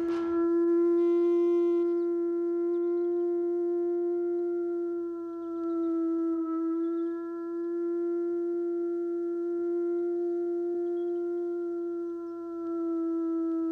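Wolf howling: one long, steady howl held at nearly the same pitch, sagging slightly about halfway through and again near the end.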